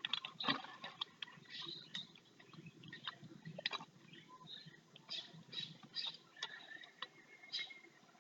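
Plastic armour pieces being handled and fitted onto an Armor Baymax action figure: irregular small clicks, taps and short scrapes of hard plastic.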